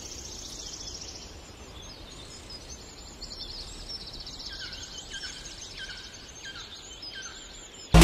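Several songbirds singing: high, rapid trills, then, about five seconds in, a run of short falling whistled notes, all over a faint low outdoor rumble.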